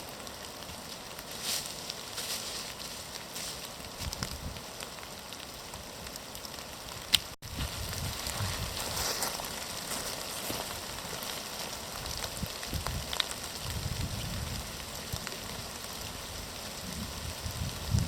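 Steady rain pattering with scattered drips, with wind gusts rumbling on the microphone in the second half.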